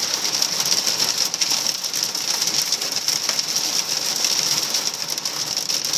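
Hail and rain drumming on a vehicle's roof and windshield, heard from inside the cabin: a steady, dense clatter of small hits.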